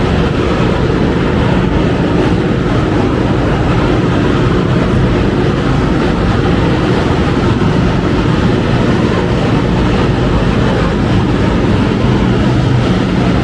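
Steady rushing noise in an automotive paint spray booth while clear coat is sprayed: the booth's ventilation fans with the air hiss of the spray gun, running evenly throughout with a low hum underneath.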